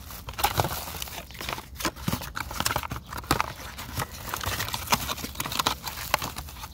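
Small cardboard LED-bulb boxes being handled and opened by hand: irregular crinkling and scraping of thin card with many sharp taps and clicks.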